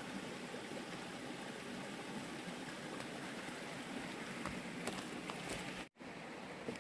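Shallow rocky stream running, a steady watery hiss, with a few close crackles about five seconds in as a person walks past carrying a rustling plastic bag. The sound cuts out for a moment near the end.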